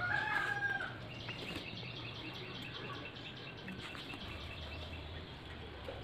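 Birds calling: a short, held call right at the start, then a quick run of short, high, repeated notes lasting about two seconds.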